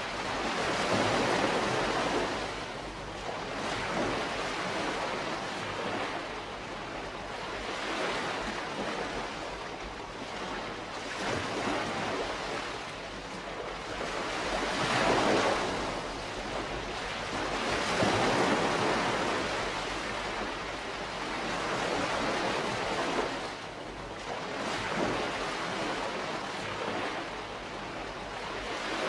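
Calm sea wash: small waves rolling in and washing up the shore, swelling and fading every few seconds.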